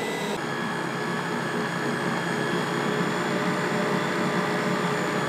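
Electric stand mixer running steadily, its motor humming as it works flour into a large batch of bread dough.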